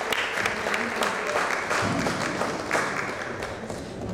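A small group clapping hands in applause, thinning out near the end.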